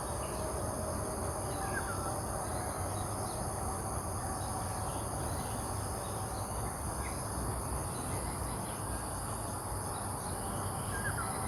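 Steady high-pitched insect chirring, like crickets or cicadas, over an even outdoor hum, with a couple of faint short chirps about two seconds in and near the end.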